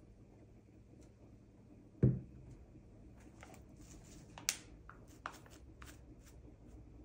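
One sharp thump about two seconds in, as of something set down on a hard surface, followed by a scatter of light clicks and rustling from hands handling things.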